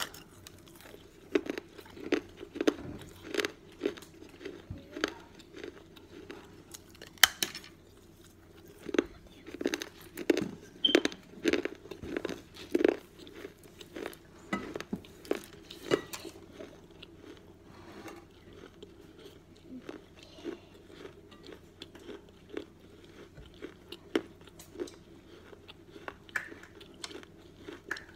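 Close-up crunching of an unglazed clay cantarito cup being bitten and chewed, a run of sharp, crisp crunches. The crunches come thick and loud for the first half or so, then thin out into quieter, sparser chewing.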